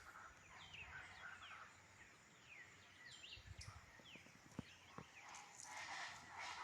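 Faint dawn chorus of birds: many short, falling chirps. Near the end a louder, harsher chorus of calls swells in.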